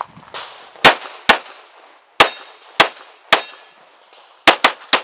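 Pistol shots in quick succession, about eight in all: two about half a second apart near the start, three singles spaced more widely, then a fast cluster near the end.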